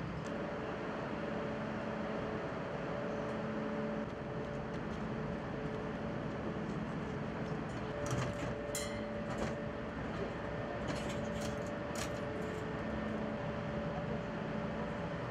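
Steady machinery hum in a train maintenance depot, with a few sharp metallic clinks of hand tools on the train's undercarriage about eight to twelve seconds in.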